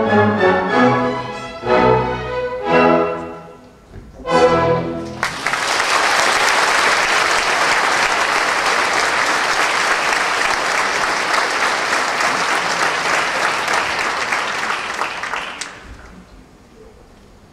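Theatre orchestra playing the closing chords of a ballet variation, the last one about four to five seconds in. The audience then applauds steadily for about ten seconds, and the applause breaks off sharply near the end.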